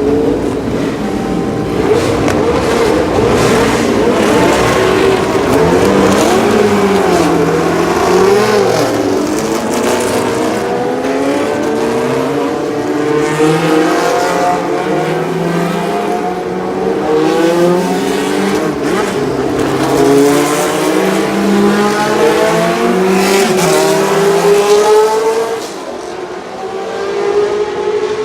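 Several racing car engines running at high revs on a circuit, pitch climbing in steps through upshifts and dropping again as the cars pass, overlapping one another. Loudness dips briefly near the end, then rises again.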